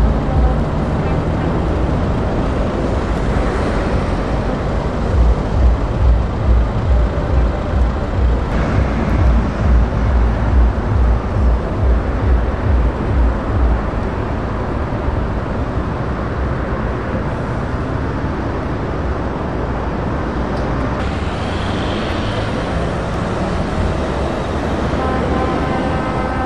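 Heavy lorry diesel engines, from Mercedes-Benz Actros and MAN tractor units, running as they pull away in a queue. The deep engine note throbs in strong pulses for several seconds in the first half, then settles to a steady rumble as a truck drives past.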